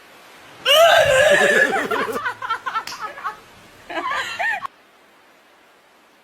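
A person laughing in two bursts, a long run of rapid giggling pulses followed by a shorter laugh about four seconds in.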